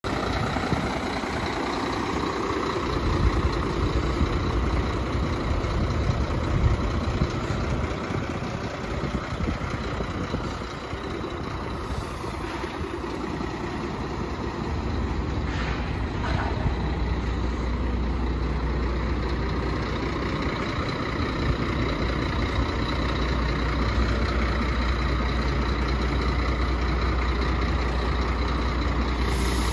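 Scania P 114 CB 380 tipper truck's inline-six diesel engine idling steadily with a low rumble, which grows stronger about halfway through.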